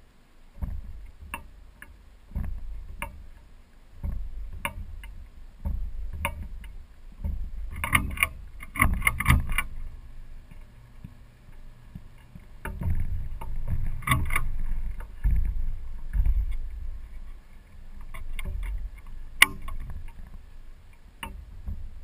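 Air buffeting the microphone of a camera spinning on a ceiling fan: a low rumble that swells and fades every second or two, with scattered clicks and rattles that bunch up about eight seconds in.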